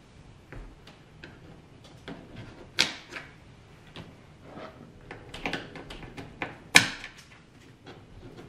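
Irregular small plastic clicks and taps as plastic grommet nuts are pushed into square holes in the underside of the sheet-metal hood, with a sharper snap about three seconds in and the loudest one near the seven-second mark.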